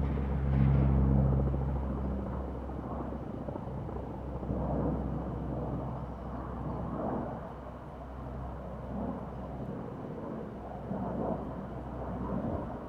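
Aircraft engines rumbling overhead as planes fly past, loudest about a second in and then slowly fading.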